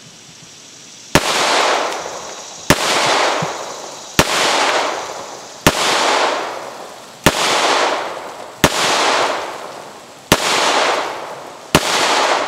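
Eight shots from a Kahr CT45 .45 ACP semi-automatic pistol fired at a steady pace, about one and a half seconds apart. Each report is followed by about a second of echo that dies away before the next shot.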